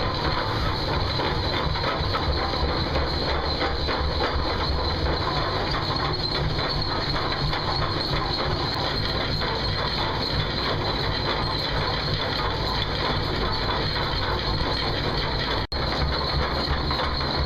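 Running machinery with a steady, rapid mechanical clatter over a low rumble, broken by a momentary drop near the end.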